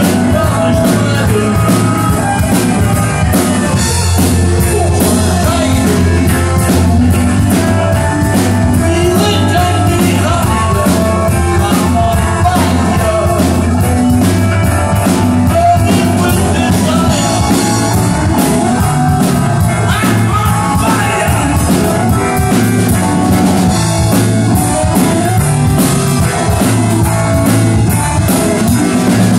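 Live rock band playing loud and steady: electric guitars, electric bass and drum kit.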